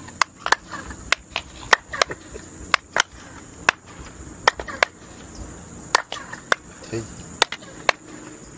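Single hand claps in front of the stepped pyramid of El Castillo, about eighteen sharp claps at uneven intervals. Each clap is answered by the staircase's short chirping echo, the well-known bird-like echo of the pyramid. A steady high insect drone runs underneath.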